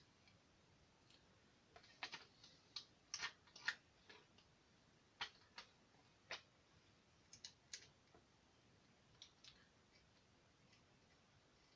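Light, irregular clicks and taps of small hex screws and a weaver rail being handled and started by hand into a Mossberg 535 shotgun's receiver, turned finger tight. The clicks cluster between about 2 and 8 seconds in, with a few more near 9.5 seconds.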